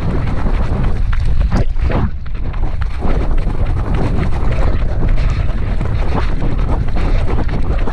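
Loud wind rumble and buffeting on the microphone of a camera carried at a run, with a few short knocks from the jostling.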